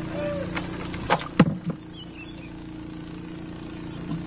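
A few sharp knocks about a second in as a gill net is hauled aboard a small boat, over a steady low engine hum.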